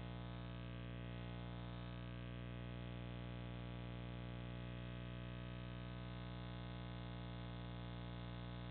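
Steady electrical hum with an even stack of overtones that does not change: the trail camera's own electronic noise on its recording. No owl call or other event stands out above it.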